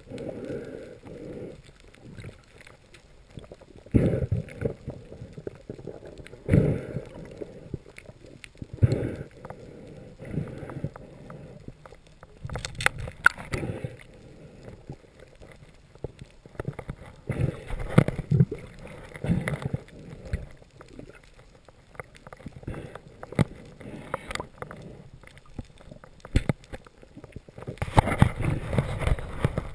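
Muffled underwater knocks and thumps at irregular intervals over a wash of water noise, picked up inside a waterproof camera housing as a speared grouper is handled on the spear shaft. A few sharp clicks come midway, and the noise grows denser and louder near the end.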